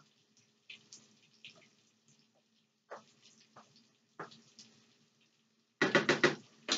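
A spoon stirring and scraping in a skillet of simmering tomato sauce: scattered soft clicks and scrapes, then a burst of quick, louder strokes near the end.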